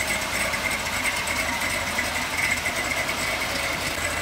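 Ford Ranger pickup's engine running steadily as the truck rolls slowly.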